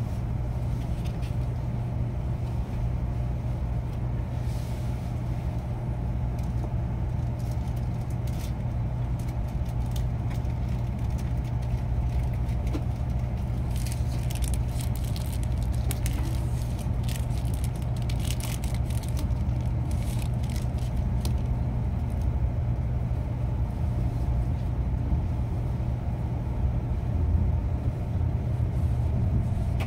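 Steady low rumble of a Shinkansen bullet train running, heard inside the passenger cabin. Scattered faint clicks and rustles, mostly in the middle stretch.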